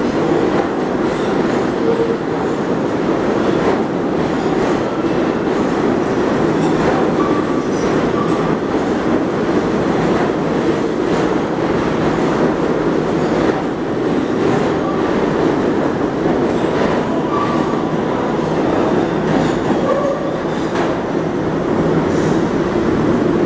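R142A subway train running past the platform and off into the tunnel: a steady rumble of the cars with wheels clacking over rail joints and a few brief wheel squeals.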